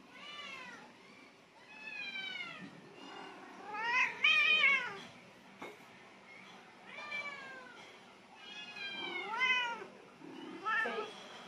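Domestic cat meowing repeatedly: about six drawn-out meows, each rising and then falling in pitch, the loudest about four seconds in.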